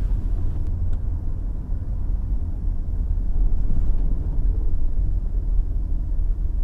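Low, steady rumble of a car's engine and tyres, heard from its own dashcam as it drives slowly along a highway.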